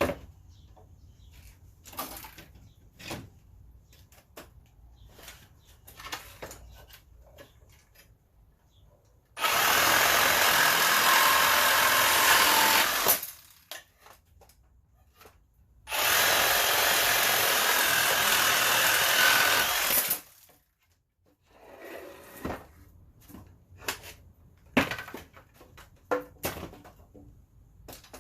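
Reciprocating saw cutting straight down along a pallet's 2x4, severing the nails that hold the board. It runs in two bursts of about four seconds each, with knocks and clatter from handling the saw and pallet before, between and after.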